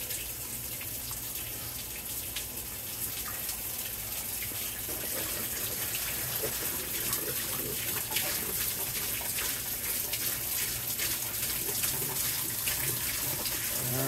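Hot water running into the tub of a top-loading washing machine as it fills, with a low steady hum under it. Partway through, vinegar is poured from a plastic jug and splashes into the water.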